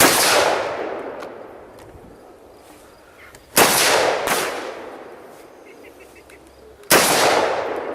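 AR-15 rifle firing single shots: one shot, then two in quick succession about three and a half seconds in, then another near the end, each followed by a long fading echo.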